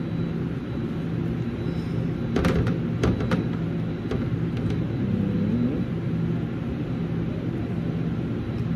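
Steady low mechanical hum of commercial kitchen equipment. Over it, a few light clicks and rustles between about two and a half and three and a half seconds in, as raw chicken pieces are handled and patted dry with paper towels.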